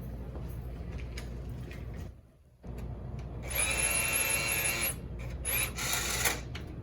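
Cordless drill whirring in a burst of about a second and a half, then a shorter burst near the end.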